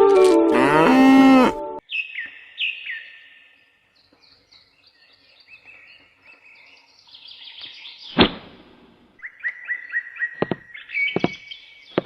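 A tune ends about two seconds in; then birds chirp in short, falling calls, with a sharp knock about eight seconds in and a quick run of chirps and a few knocks near the end.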